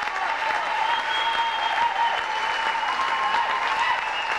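Audience applauding steadily, with a faint wavering tone running through the clapping.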